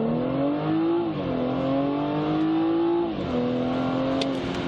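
2016 BMW 340i xDrive's 3.0-litre turbocharged inline-six accelerating at full throttle, heard from inside the cabin. The engine note rises steadily and drops sharply at two upshifts, about a second in and just past three seconds, then climbs again after each.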